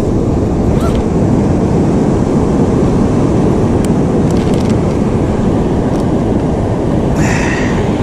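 Heavy ocean surf with wind on the microphone, a steady loud low rumble. A short, higher rustling sound comes about seven seconds in.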